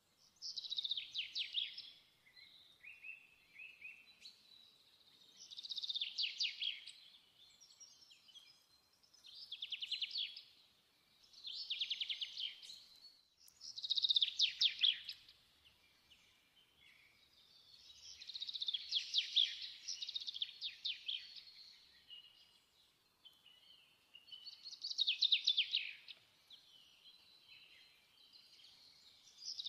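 A songbird singing: bursts of rapid notes that sweep downward, repeated every few seconds, with fainter chirps in between.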